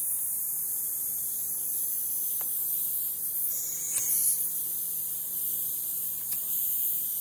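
A steady hum with a high hiss of air, and a few faint clicks as the flywheel of a small vertical slip-eccentric mill engine is stopped and turned back by hand to reverse it.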